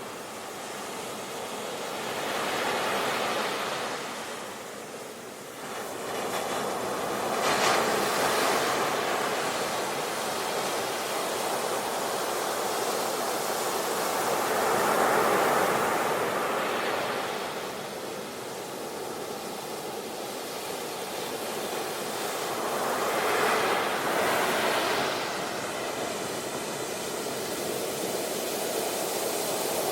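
Ocean waves breaking on a beach: a continuous wash of surf that swells and eases as each wave comes in, with stronger breakers about 8, 15 and 24 seconds in.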